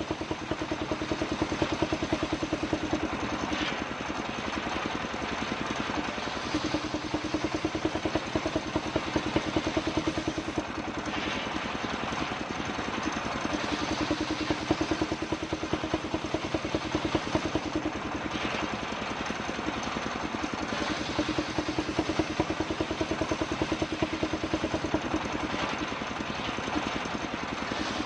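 Engine-driven circular saw rig running steadily, its engine firing in an even beat. A tone swells and fades every several seconds as the blade works through kapok wood.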